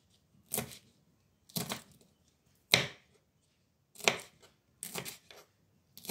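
Kitchen knife slicing through fresh chillies and knocking on a wooden chopping board: about six single cuts, roughly one a second, with quiet between.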